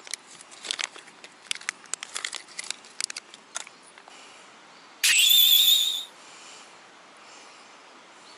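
Crinkling and crackling of a plastic sinker packet being handled and opened, in quick small clicks that stop after about three and a half seconds. About five seconds in comes a loud, warbling whistle-like tone lasting about a second, the loudest sound here.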